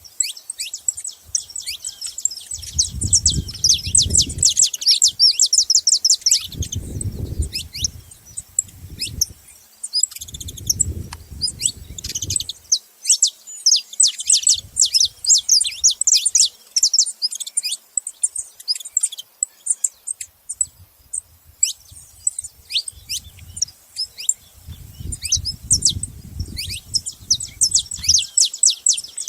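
Several saffron finches chirping and singing together in rapid, high, downward-sweeping notes, in long dense bouts with a sparser lull about two-thirds through. Low muffled rumbling comes and goes several times underneath.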